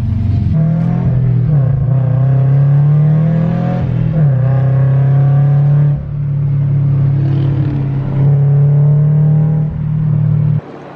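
Car engine running under way, a steady drone whose pitch rises and falls as it pulls. It dips briefly about six seconds in and again near the end, then cuts off abruptly.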